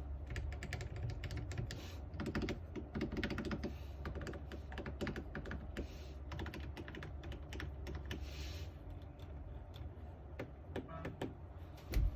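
Fast typing on an Alice-layout mechanical keyboard in a 3D-printed case with stock Bubble Gum switches: a quick, uneven run of keystroke clacks, with a heavier knock near the end.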